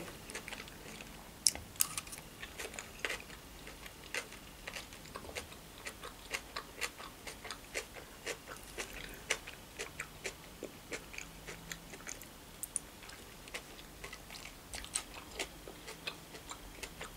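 A person chewing a mouthful of crab stick salad with mayonnaise, mouth closed: faint, irregular wet clicks and small crunches.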